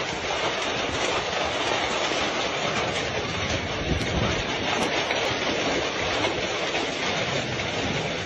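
Heavy hail pelting wet ground in a dense, steady rattle of countless small impacts.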